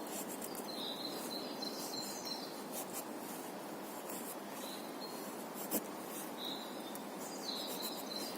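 Plain-edged pocket-knife blade shaving curls off a wooden stick to make a feather stick: short, dry scraping strokes, several times over, against a steady outdoor background.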